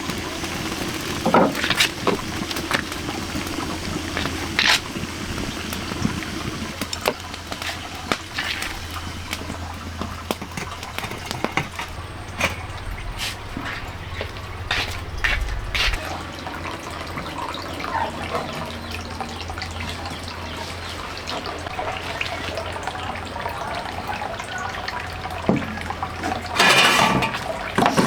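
Running, splashing water with scattered short clicks and knocks, over a steady low hum; a louder cluster of knocks comes near the end.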